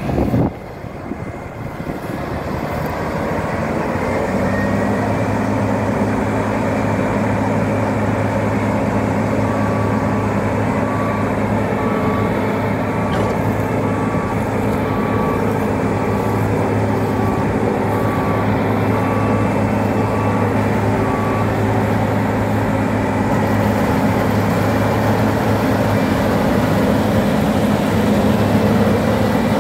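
New Holland CR 6080 combine harvester running while harvesting oats: a steady hum from the engine and threshing machinery, growing louder over the first few seconds. A high beep repeats about once a second for about twelve seconds through the middle.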